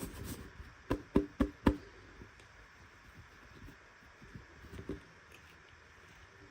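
Four quick knocks of small hard plastic toy pieces being handled and set down, about a second in, each with a short hollow ring, followed by faint handling clicks and rustles.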